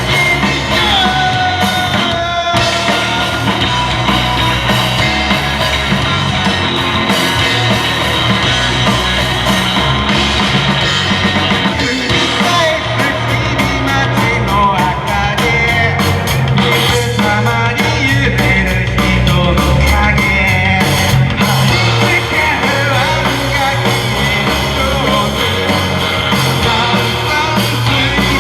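A rock band playing live, with drums and singing.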